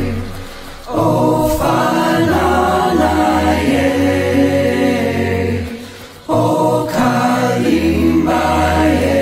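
Background music: a choir singing long, sustained chant-like phrases over a steady low drone. The phrases break off briefly about half a second in and again about six seconds in.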